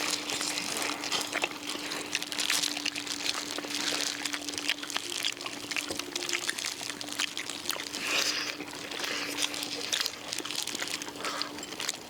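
People eating oak wood-grilled duck: crunching and chewing the crisp skin, with plastic gloves crinkling as they pull the meat apart. There are dense small clicks and crackles, louder in short clusters, over a steady faint hum.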